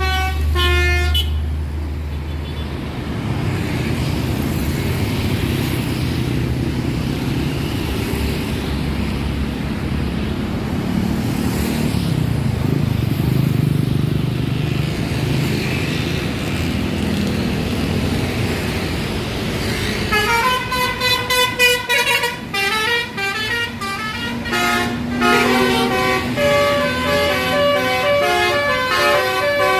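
A bus's telolet basuri multi-trumpet air horn plays a quick tune of stepped notes for about the first second. Then comes a long stretch of low engine and road rumble from passing heavy vehicles. From about twenty seconds in, the musical air horn melody plays again, with several notes changing rapidly.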